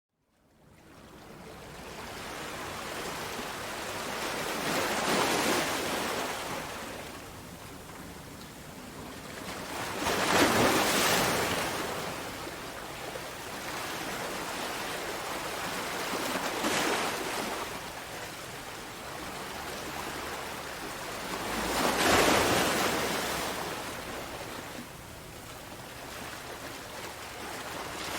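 Ocean waves breaking on the shore: a steady wash of surf that swells into a louder breaker every five to six seconds, the strongest about ten and twenty-two seconds in.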